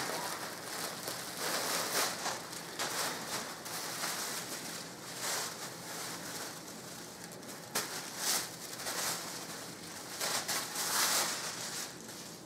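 Clear plastic packaging crinkling and rustling in irregular bursts as it is torn open and a hockey jersey is pulled out of it.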